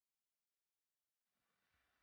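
Near silence, with only a very faint hiss of noise starting a little past halfway through.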